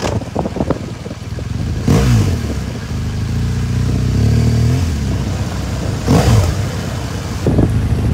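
Motorcycle engine running under way, its pitch rising and falling as the throttle is opened and eased off a few times.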